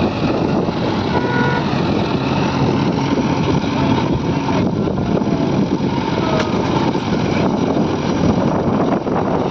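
Heavy diesel machinery running loud and steady: the engines of a backhoe loader and tractors working at a mud-loading site.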